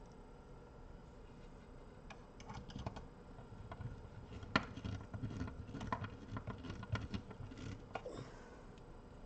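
Scattered small clicks and taps of a screwdriver working screws into a car amplifier's metal chassis, busiest from about halfway through, with one sharper click then.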